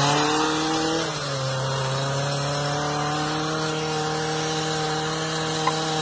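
A small engine running at high revs, easing off slightly about a second in and then holding a steady pitch.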